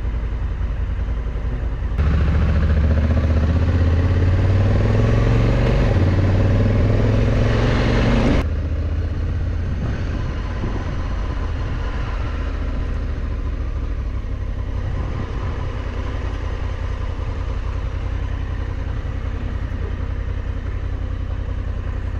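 Honda Africa Twin parallel-twin motorcycle engine running while riding, with wind and road noise. For several seconds it gets louder and climbs in pitch under acceleration, then drops back abruptly to steady cruising.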